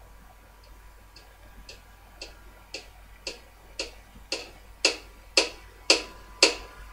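A steady beat of sharp clicks or taps, about two a second, starting faint and growing steadily louder, leading into guitar music.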